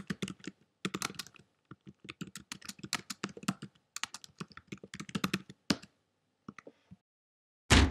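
Computer keyboard typing: quick, irregular key clicks in short runs, stopping about a second before the end. A loud thud-like beat starts right at the end.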